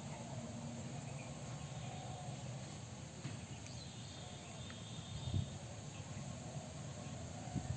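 Steady outdoor insect calling over a low background hiss, with one soft low thump about five seconds in.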